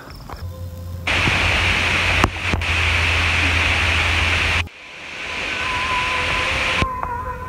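Steady rushing hiss of wind on the microphone and through the pine trees, in two stretches that start and stop abruptly.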